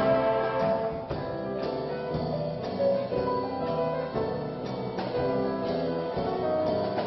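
A small live orchestra playing, strings and other instruments holding overlapping notes, with a few sharp percussive accents.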